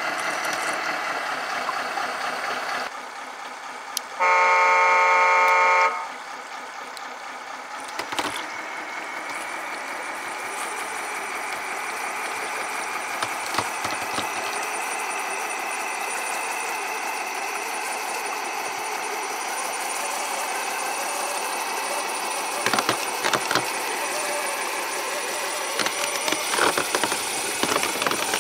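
Tracked RC semi truck driving, with the steady whine of its four brushed electric motors and two transmissions. A loud truck horn sounds once for about two seconds, about four seconds in. Scattered clicks and knocks come near the end.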